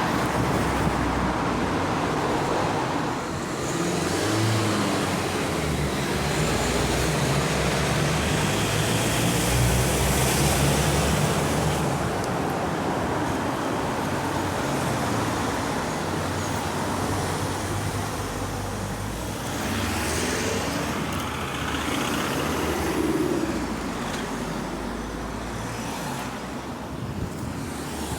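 Road traffic noise: a continuous wash of passing vehicles, swelling around ten and twenty-three seconds in.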